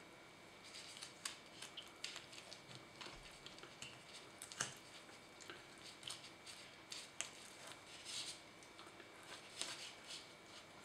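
Faint, irregular scraping and small clicks of a knife cutting a pheasant breast fillet away from the breastbone and wishbone, loudest about four and a half seconds in.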